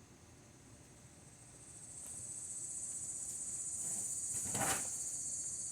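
Insects outdoors, a steady high-pitched shrill trill that swells in about a third of the way through and keeps going. A single short knock comes shortly before the end.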